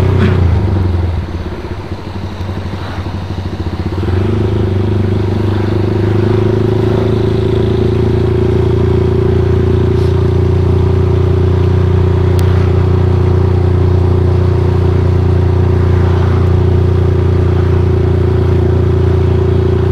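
Motorcycle engine running while riding along, with road noise. The engine eases off about a second in, then picks up again after a few seconds and holds a steady cruising note.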